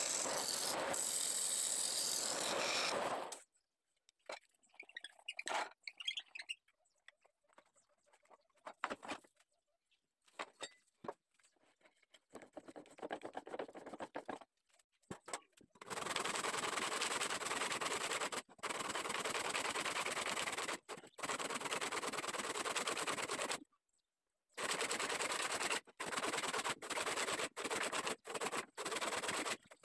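A gouge cutting cumaru wood spinning on a wood lathe makes a steady hiss that stops about three seconds in, followed by scattered light knocks and handling noises. From about sixteen seconds in, a hand saw cuts through the turned wood in long stretches broken by brief gaps.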